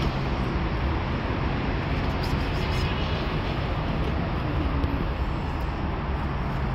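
Steady city street traffic noise, a low rumble of cars on the road.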